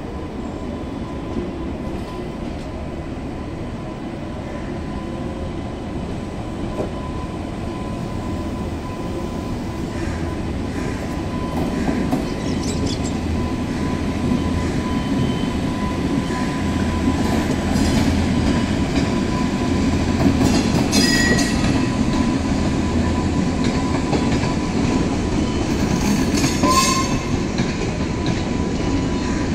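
Indian Railways electric locomotive hauling a passenger train passing close by: a steady rumble of wheels on rails that grows louder as the train comes on. There are brief wheel squeals about two-thirds of the way through, and clicks of the wheels over rail joints near the end.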